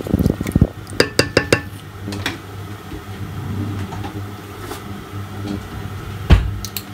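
Wooden spoon stirring lentil soup in a metal pot, then a quick run of light clicks and knocks. A steady low hum sets in under it, with a single loud thump near the end.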